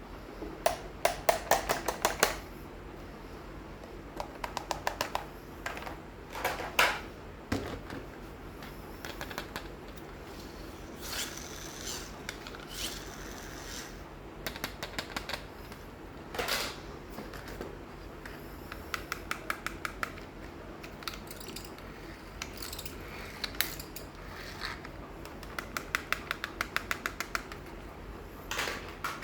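Small plastic toys being handled, giving repeated short runs of fast, sharp clicking and rattling, with brief rustles between them.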